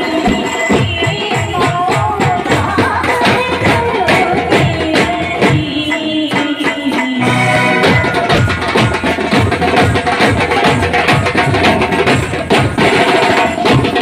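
Indian street brass band playing: a wavering horn melody over fast, driving snare and bass drum beats. The low drum strokes thin out for about a second midway, then the full beat comes back.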